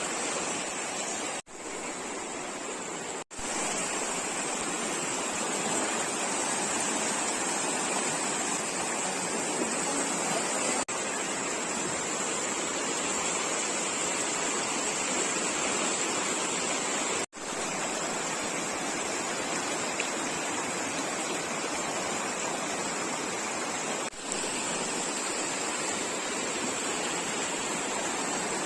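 River water rushing steadily, an even hiss-like flow noise, cut off for an instant a few times.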